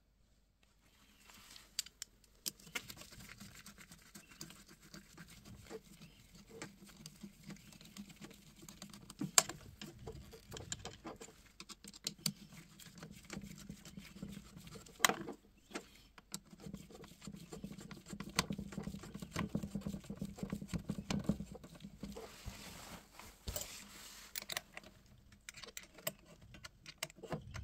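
Screwdriver turning the worm screw of a metal hose clamp on a plastic check valve and rubber hose: irregular small clicks and scrapes with handling noise, and a few sharper knocks.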